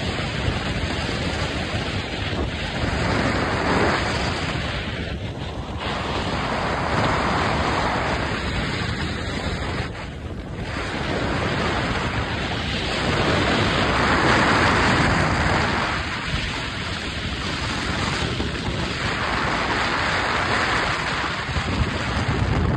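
Steady wind and road rush of a car travelling at highway speed, swelling and fading every few seconds.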